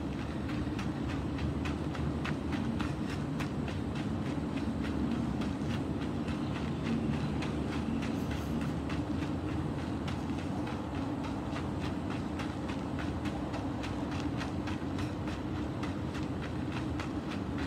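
Quick steady footsteps of sneakers stepping out and in on gravelly ground, a rapid run of short scuffs and taps over a continuous low rumble.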